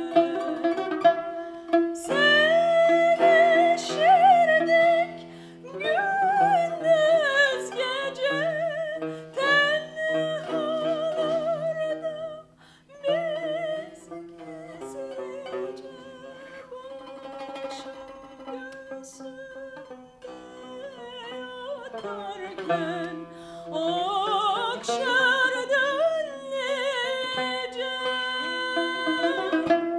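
A woman singing a Turkish classical makam song, her melody heavily ornamented and wavering, to the plucked accompaniment of a tanbur. The voice eases off for a softer stretch around the middle, then climbs again in a rising phrase near the end.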